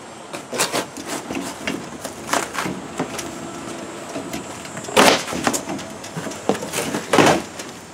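Large cardboard shipping box being opened and handled: a run of scrapes, rustles and knocks, the loudest about five and seven seconds in.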